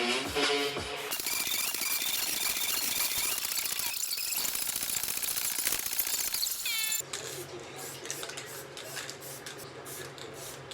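Handheld power tool running in the shop: a loud, harsh hiss for about six seconds, then quieter about seven seconds in with a steady motor hum underneath. Background music fades out in the first second.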